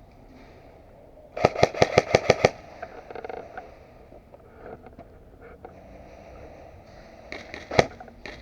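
Airsoft gun firing a rapid burst of about nine shots in a second, then a few more shots near the end.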